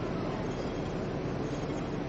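Steady rumbling hum with street noise, heard on the upper deck of a Hong Kong double-decker tram standing still.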